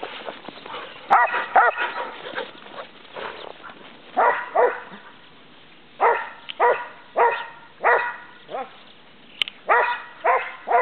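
Australian Shepherd barking repeatedly in play: a quick run of short barks just after a second in, then, after a short lull, single barks about every half second to second.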